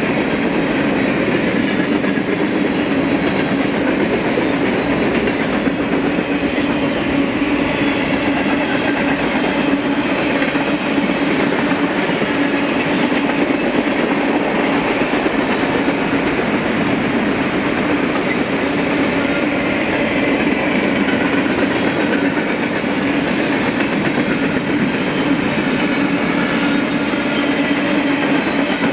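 Freight train cars, mostly tank cars and boxcars, rolling past with the steady noise of steel wheels running on the rail and a low, even hum beneath it.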